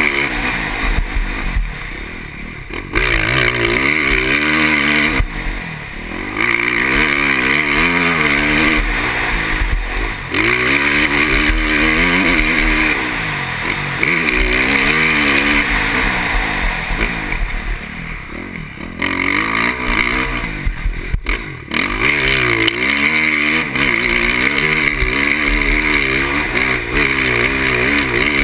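KTM motocross bike engine revving hard through the gears, its pitch climbing and falling again and again, with the throttle closed briefly several times, heard from a camera mounted on the bike.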